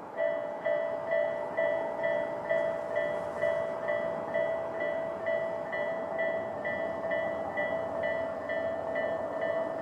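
Japanese level crossing alarm of the Tobu Railway 'sound A' type starting up. Two electronic bells, one on each side of the crossing, strike at slightly different pitches about twice a second, their strokes a little out of step. It warns of an approaching train.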